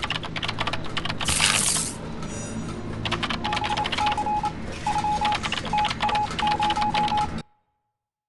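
Close-miked chewing of crunchy food: a dense run of rapid crackling clicks, with a brief hissing crunch about a second and a half in. The sound cuts off abruptly to silence near the end.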